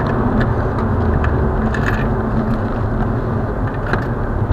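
Steady driving noise of a car at speed, heard inside the cabin: a dense rumble of tyres, wind and engine, with a few faint clicks.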